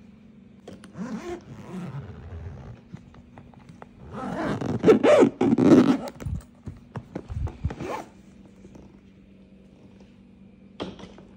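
Zipper of a hard-shell suitcase being pulled shut around the case, loudest about halfway through. Rustling and a few knocks follow as the case is handled, with a sharp click near the end.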